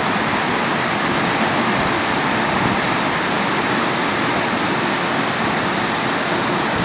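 Unchalli waterfall crashing down, a loud steady roar of falling water.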